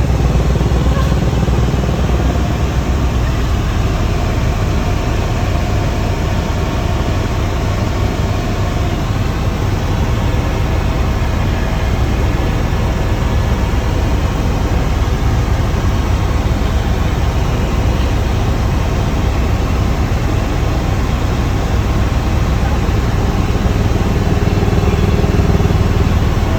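Helicopter in flight, heard from inside the cabin: a steady, loud drone of engine and rotor.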